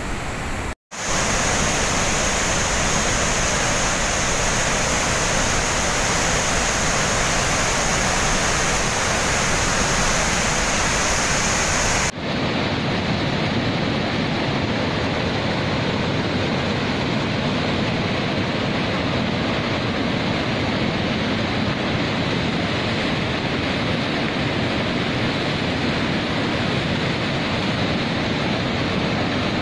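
Rushing floodwater, a loud steady roar. It drops out briefly about a second in, and about twelve seconds in it changes abruptly to a duller, deeper rush with the high hiss gone.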